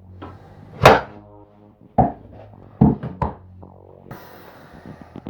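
Knocks and clunks of flat-pack cabinet parts being handled: one sharp knock about a second in with a brief ringing tone after it, then three more knocks over the next second and a half.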